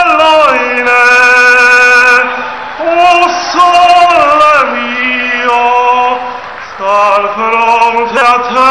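A man singing unaccompanied in a loud voice, holding long notes and sliding between pitches, with a brief drop in loudness a little past the middle.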